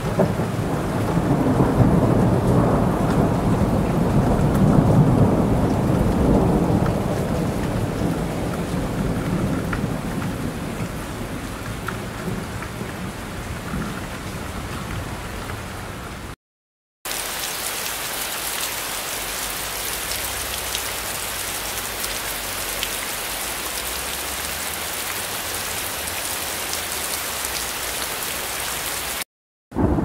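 Heavy rain with a long rolling thunder rumble that swells a couple of seconds in and slowly fades. About sixteen seconds in the sound cuts out for a moment, then steady rain without thunder follows. It cuts out again briefly near the end.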